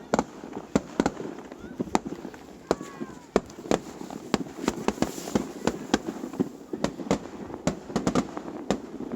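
Fireworks display: aerial shells bursting in quick, irregular succession, sharp bangs about two a second over a rumbling wash of echo.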